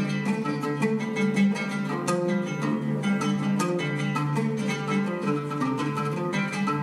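Oud played solo: a fast, dense run of plucked notes over steady low ringing notes.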